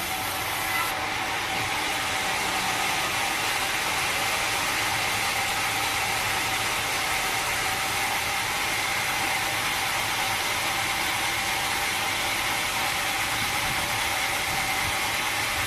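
Sawmill machinery running steadily: a continuous whirring noise with a higher, brighter band that firms up about a second or two in.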